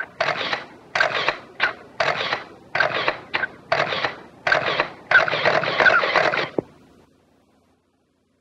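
Skateboards hitting the ground: a quick run of about a dozen sharp hits (tail pops, landings and trucks striking), roughly two a second, stopping about six and a half seconds in.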